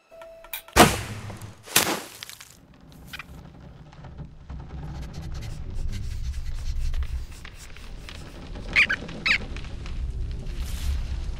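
Animated-film sound effects: two sharp hits about a second apart near the start, then a low rumble that slowly grows, with two short high squeaks about nine seconds in.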